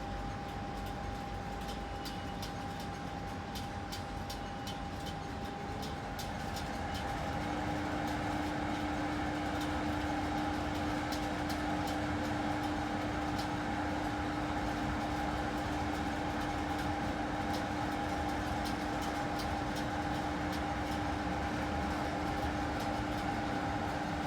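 A train at the station platform giving out a steady hum. About seven seconds in, a second, lower hum joins it and the sound grows a little louder, with faint scattered clicks before that.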